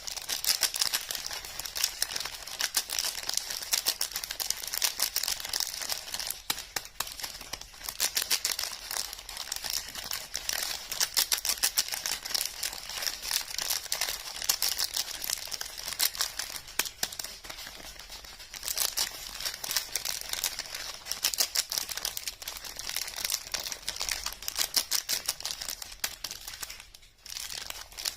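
Soap wrappers crinkling and tearing as bars of soap are unwrapped: a dense run of crisp crackles, with a brief pause near the end.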